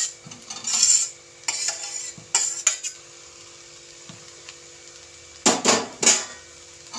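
Metal utensil scraping and clinking against steel cookware as food is tipped from a steel bowl into a steel pan of rice: a run of short scrapes in the first few seconds, then two louder ones near the end.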